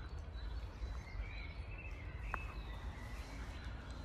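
Park ambience: a steady low rumble of distant city traffic under faint bird calls, with a single sharp click a little over two seconds in.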